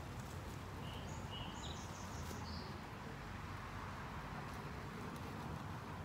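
Outdoor backyard ambience: a steady low background rumble with a few short high bird chirps between about one and two and a half seconds in.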